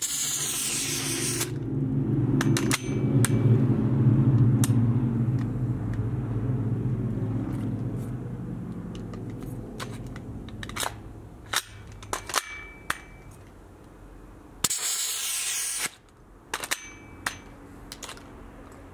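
Gas blowback airsoft rifle failing to fire on a freezer-chilled green gas magazine: two long hisses of gas, one at the start and one about 15 s in, with scattered sharp clicks of the action, and no shot registering. A low drone swells and fades over the first ten seconds.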